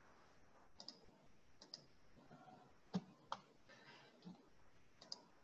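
Faint computer mouse clicks, about eight of them spread unevenly over near silence, the loudest a pair about three seconds in.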